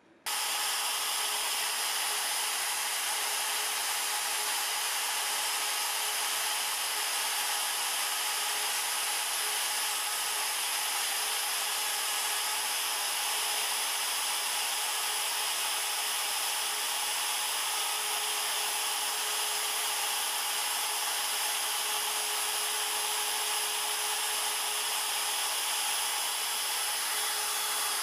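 Compact trim router running at full speed, its bit cutting into the end grain of a walnut stool leg: a loud, steady, high whine that comes in suddenly just after the start.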